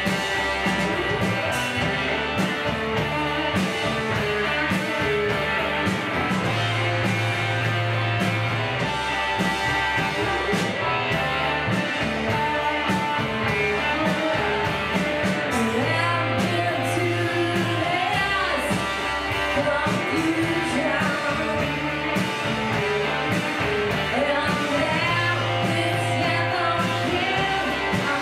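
Indie rock band playing live: electric guitars and drums going steadily, with singing over the top.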